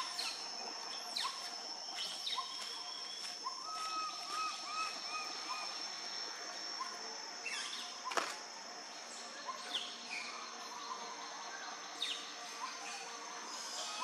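Tropical woodland ambience: birds calling in runs of short, repeated arched chirps, over a steady high-pitched drone, with a few sharp sweeping calls, the loudest about eight seconds in.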